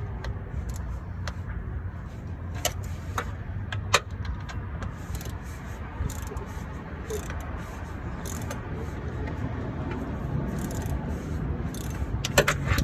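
A wrench and socket clicking and clinking against metal in scattered, irregular strikes while the belt tensioner's bolt is worked loose, over a steady low hum.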